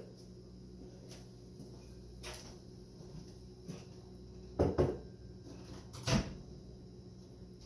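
A few short knocks and clunks as kitchen cupboard doors and things on the counter are handled. The loudest are two close together about four and a half seconds in and one more about six seconds in.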